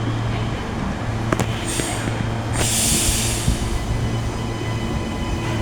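NGR electric multiple-unit train pulling out of the station: a steady low electric hum with faint steady tones, a click about a second in, and two short hisses around two and three seconds in.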